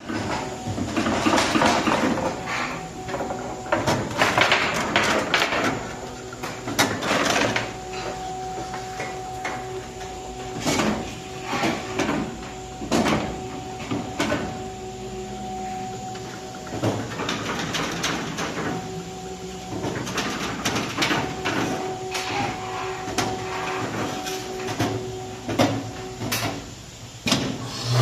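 Workshop tool work: a small machine running with a steady hum that comes and goes, under irregular knocks, clicks and rasping.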